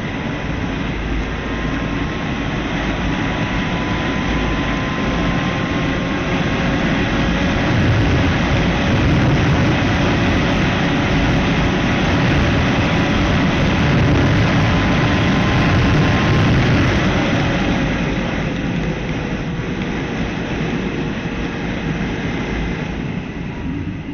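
Motorcycle running at speed with heavy wind rush over the microphone, swelling louder midway and easing off near the end.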